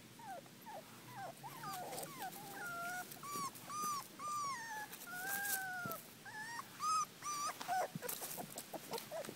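Brittany puppies whimpering and whining: a string of short, high squeaks that rise and fall in pitch, sometimes overlapping, with a few light clicks among them.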